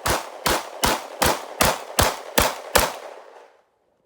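A 9mm semi-automatic pistol fired in a steady rapid string: eight sharp shots, about two and a half a second, ending nearly three seconds in. It is being fired with snow still in the barrel and cycles without a stoppage until the slide locks back on the empty magazine.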